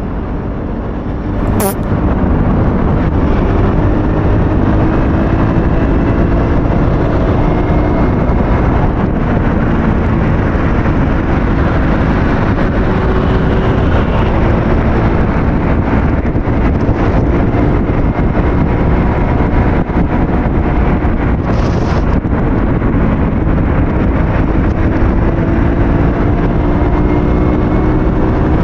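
Aveta Ranger 110 motorcycle's small single-cylinder engine running on the move, its pitch rising and falling several times as the bike speeds up and eases off, under a steady rush of wind on the helmet-mounted camera. A sharp click sounds about two seconds in, after which everything is louder.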